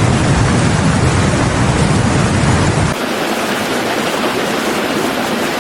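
Steady loud rushing of water, a dense roar with a deep rumble under it for the first three seconds; the rumble drops out suddenly about three seconds in, leaving a thinner hiss.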